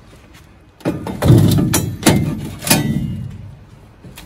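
Rusty steel rectangular tube set down on a sheet-steel table top and shuffled into place: about five knocks and clanks of metal on metal, the loudest about a second and a half in.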